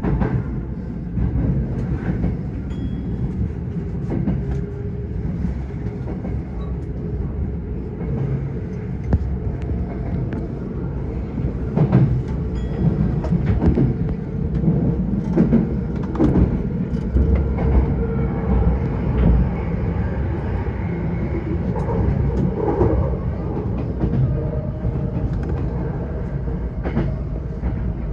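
Tokyo Metro 05 series electric commuter train running at speed, heard from inside the front car: a steady rumble of wheels on rail, with the clack of wheels crossing rail joints, thickest about twelve to seventeen seconds in.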